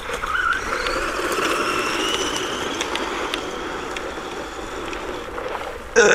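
Electric motor of a PXtoys 9200 Piranha 1/12 RC truggy whining at full throttle, its pitch climbing over the first couple of seconds and then easing slightly, over the crunch of its tyres on gravel. A short louder burst comes right at the end.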